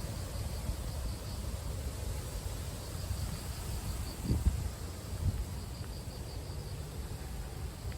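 Outdoor insects, crickets or similar, trilling faintly in pulsing bursts over a steady low rumble, with two soft thumps a second apart near the middle.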